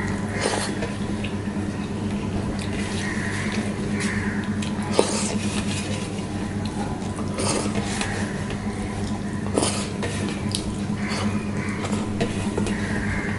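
Wet squelching of rice and curry being mixed and squeezed by hand on a stainless steel plate, with chewing and scattered sharp lip smacks and clicks, over a steady low hum.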